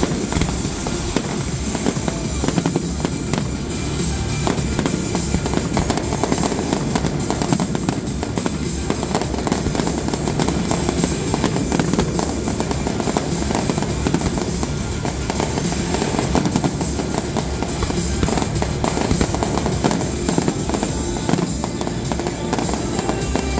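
A fireworks display, with aerial shells bursting and a dense, continuous crackling and popping throughout. Music plays along with it.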